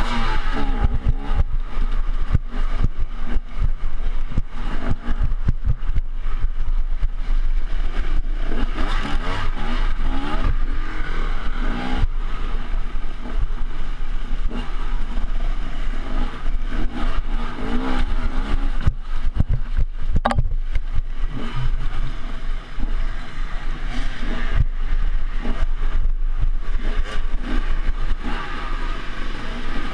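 Dirt bike engine revving up and down repeatedly as the bike rides a rough, muddy trail, heard close up from a camera mounted on the bike, with frequent knocks and rattles from the bumps.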